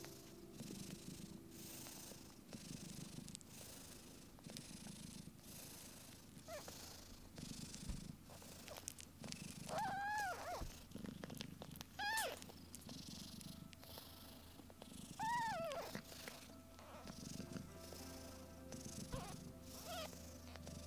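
A cat purring in a steady low rumble. Three short, high, arched mews come about ten, twelve and fifteen seconds in, with a few fainter squeaks later.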